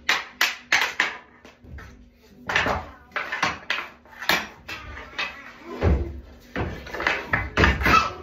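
Mini hockey sticks clacking against each other and slapping a puck across a tile floor. The knocks come in quick runs, with heavier thuds near the end.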